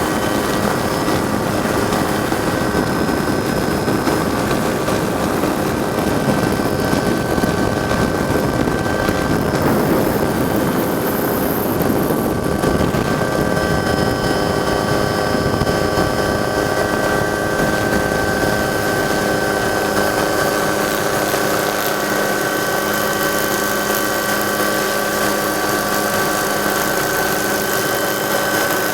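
Camera helicopter's engine and rotor heard from aboard: a steady, loud drone with a few high, even whining tones that hardly change.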